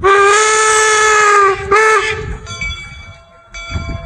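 Steam whistle of the Union Pacific No. 119 replica 4-4-0 locomotive sounding one long blast of about a second and a half, then a short blast. After that come fainter steady ringing tones and a low rumble from the running engine.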